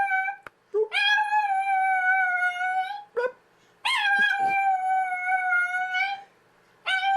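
A dog howling in long drawn-out notes, three or four howls of about two seconds each with short pauses between, each holding a steady pitch that sags slightly at the end.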